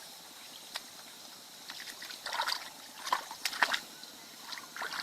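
Water sloshing and splashing in short irregular bursts, with a few sharp knocks clustered in the middle.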